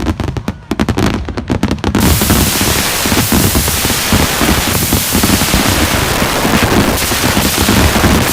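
Fireworks going off in a rapid barrage of sharp bangs. About two seconds in it turns into a continuous, dense crackling hiss of many overlapping pops.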